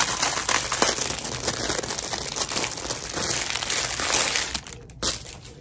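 Packaging crinkling and crackling as it is opened by hand, stopping just before the end with one last crackle.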